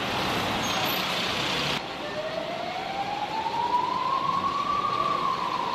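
A car passing close by in street traffic, then, after a cut, an emergency vehicle siren in one long slow wail that rises, levels off and begins to fall near the end.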